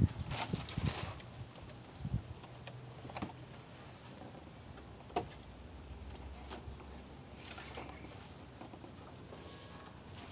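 Cardboard box and packaging being handled: a cluster of knocks and bumps in the first second as the insert is lifted out, then a few scattered light taps and ticks over a low steady background.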